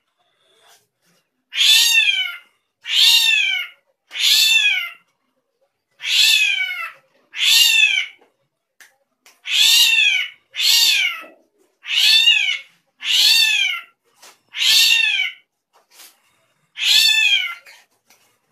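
Drongo giving a strange call over and over: about eleven drawn-out calls, each arching up and then falling in pitch, one every one to two seconds.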